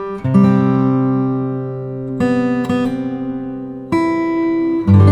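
Background music of strummed guitar chords, each chord ringing out and fading before the next is struck, about five strikes in all.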